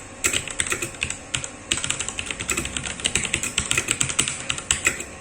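Typing on a mechanical keyboard with Cherry MX switches: a fast, irregular run of key clicks and clacks.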